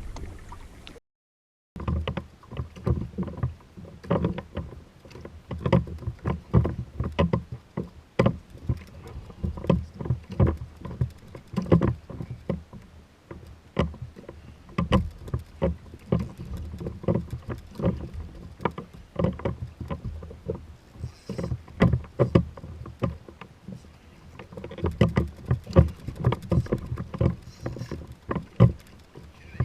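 Water slapping and knocking against a kayak hull: an uneven run of small splashes and knocks, broken by a moment of dead silence about a second in.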